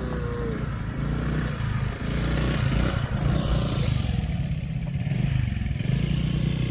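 A small engine running steadily, with some clatter over it.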